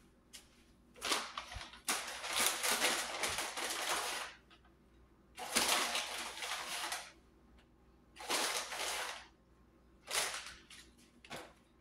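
Plastic packaging crinkling as it is handled, in about six bursts with pauses between them, the longest lasting about two seconds.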